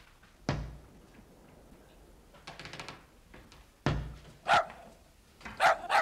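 A heavy, dull bang sounds about half a second in and again about three and a half seconds later, an odd rhythmic banging from somewhere in the house. A small dog barks sharply several times in the second half.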